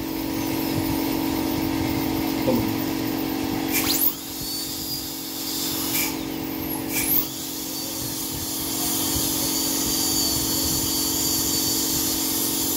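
High-speed dental air-turbine handpiece running with a steady high whine and hiss, grinding an upper front tooth during crown preparation. It cuts out and spins up again a few times, around four and seven seconds in.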